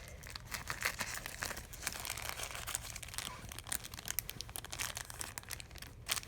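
Plastic packaging being opened by hand, with irregular crinkling and tearing.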